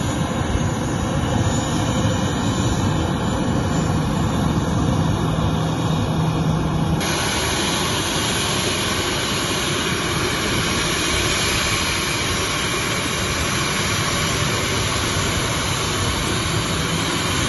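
Twin turbofan engines of a Boeing 737 running steadily as the airliner rolls along the runway and taxis: a continuous jet rush and whine. The sound shifts abruptly about seven seconds in.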